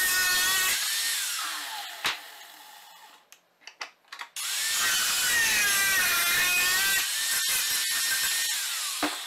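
Angle grinder grinding steel bar stock. Its whine winds down and stops after about a second, followed by a few clicks. At about four and a half seconds it spins up again and grinds steadily, then winds down near the end.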